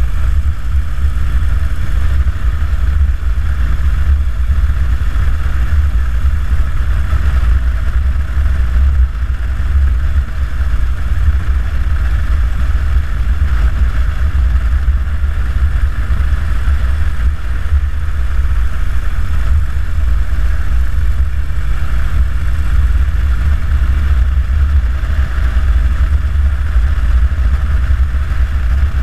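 Harley-Davidson Dyna Super Glide's Twin Cam 96 V-twin engine running steadily at cruising speed, a loud, deep rumble that holds without gear changes or bursts of revving.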